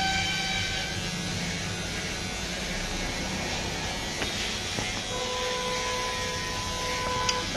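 Electric hair clipper running steadily as it shaves hair close to the scalp.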